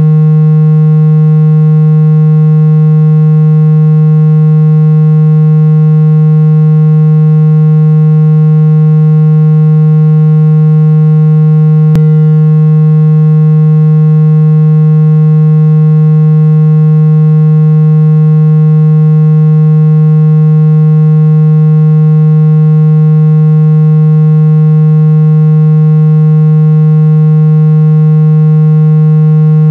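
Steady low-pitched buzzing tone played at full volume: a synthesized speaker-cleaning tone meant to shake water out of a phone speaker. A faint click comes about twelve seconds in.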